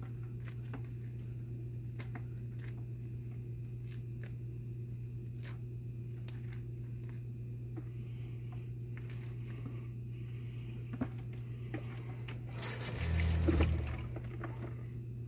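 Coturnix quail being skinned by hand: faint wet squishing and tearing of skin and feathers with scattered small clicks, over a steady low hum. Near the end comes a brief, louder rush of noise.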